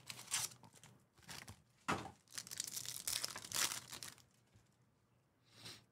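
Foil trading-card pack wrappers crinkling and tearing as packs are opened and cards are handled, in irregular rustling bursts for about four seconds, then one more brief rustle near the end.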